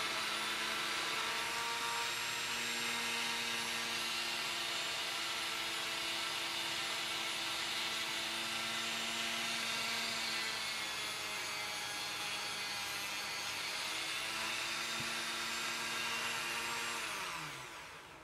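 A handheld rotary tool with a felt polishing bob runs at high speed, buffing a chrome guitar tuning machine: a steady high whine over a hiss. Near the end the motor is switched off and winds down, falling in pitch until it stops.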